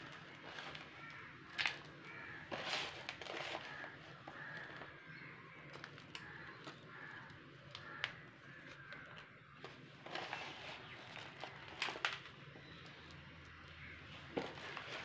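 A plastic lid pressing and scraping loose potting soil down inside a coconut-shell pot, making scattered soft scrapes and taps. Birds call faintly in the background.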